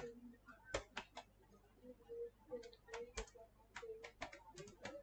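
Faint, irregular clicks of keys being typed on a computer keyboard.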